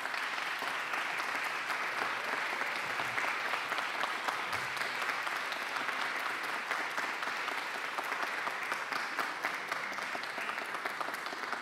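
Audience applauding: a room full of people clapping steadily. It begins right as the speech ends and keeps up at an even level.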